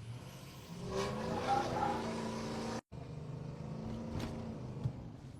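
Ford pickup's V8 engine pulling away, its pitch rising about a second in and then holding steady, with a brief break near the middle.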